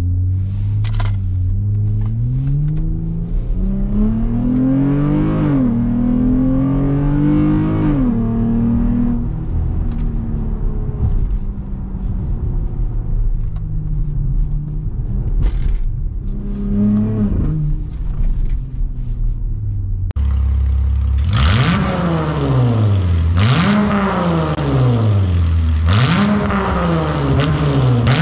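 2014 Jeep Grand Cherokee's exhaust with valved mufflers open and the resonator deleted, heard from inside the cabin. The engine pulls up through the gears, its pitch rising twice with a drop at the shift, then settles to a steady cruise. After about twenty seconds it is heard at the tailpipes instead, revved repeatedly in sharp rises and falls about every two and a half seconds.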